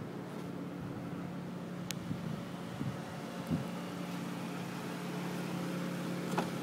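A car engine idling with a steady low hum. Sharp clicks near the end come as the car door latch is worked open.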